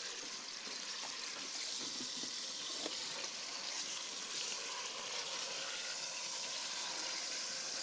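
Slices of leg of lamb frying in butter in a pot: a steady sizzle with a few faint crackles.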